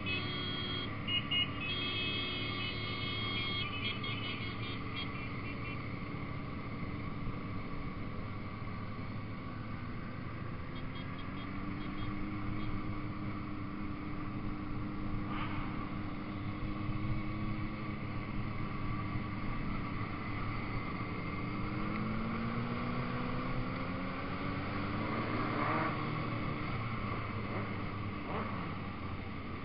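Motorcycle engines running as a group of bikes rides along, heard from on board one of them; the engine pitch rises as it accelerates about twenty seconds in. Short high beeps sound in the first few seconds.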